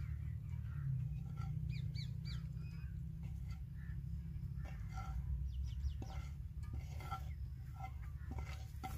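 Birds calling outdoors: short high chirps and scattered call notes over a steady low rumble.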